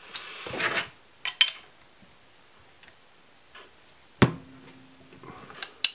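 Steel wrenches scraping and clinking on the nut and washers of a threaded-rod bearing press as the nut is turned to press a bearing into a plastic bottom bracket shell. A scrape at the start, a few light clicks, then a sharp metallic clink about four seconds in that rings briefly, and another clink near the end.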